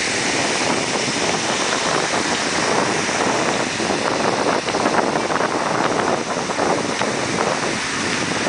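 Ocean surf breaking and washing onto a beach, a steady rushing wash, with wind buffeting the microphone.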